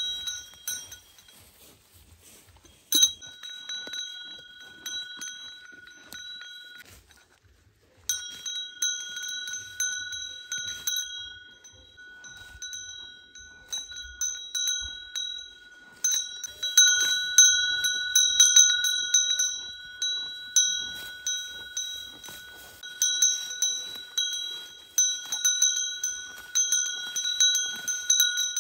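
Small bell on a cow's collar ringing again and again at an uneven pace as the cow walks and grazes. There is one sharp stroke about three seconds in and a brief pause about seven seconds in.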